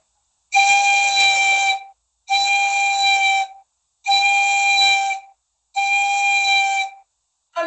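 Pan flute holding the same breathy note four times, each about a second and a half long with short breaks between. It is a vibrato exercise at one vibrato pulse per beat, made by pushing and pulling the pipes at the lips.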